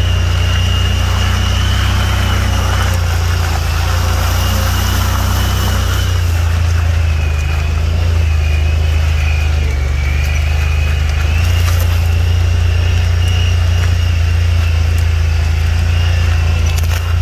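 Off-road vehicle's engine running steadily as it drives along a muddy, snowy dirt track: a low, even drone with a thin high whine wavering above it.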